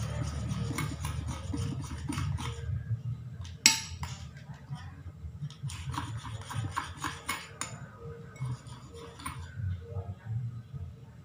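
Metal spoon clinking and scraping against a ceramic bowl in quick runs of taps while stirring slime, with one sharper knock about four seconds in.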